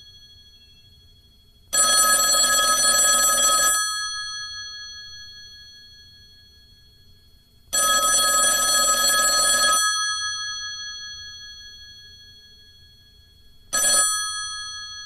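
Telephone bell ringing: two rattling rings of about two seconds each, about six seconds apart, with the bell tone dying away after each, then a third ring that breaks off after a fraction of a second near the end.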